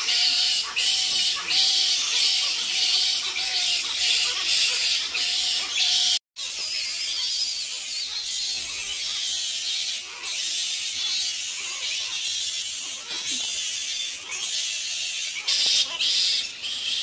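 A colony of fruit bats squabbling: a dense, continuous high-pitched chatter of overlapping squeals and calls. It drops out for an instant about six seconds in, then goes on.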